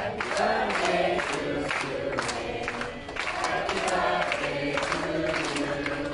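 A small group of people singing together, clapping along in time, as for a birthday song over a cake with candles.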